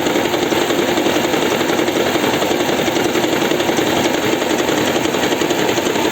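Toyota Camry 50 hybrid's 2.5-litre four-cylinder petrol engine running with a steady, fast rattle.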